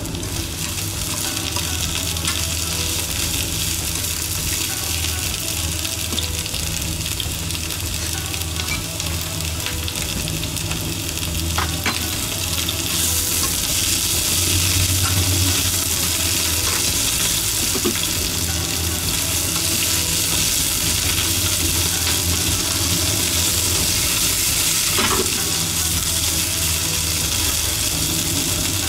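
Sliced green peppers sizzling as they are stir-fried in a nonstick frying pan and cooked down until they wilt: a steady frying hiss that grows a little louder partway through, with a few light clicks.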